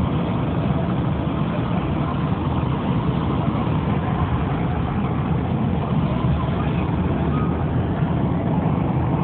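Steady low rumble of a car's engine and road noise heard from inside the cabin.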